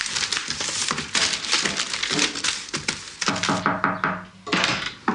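Sheets of paper rustling and being shuffled, with light knocks against a wooden desk. About three and a half seconds in, a short burst of voice.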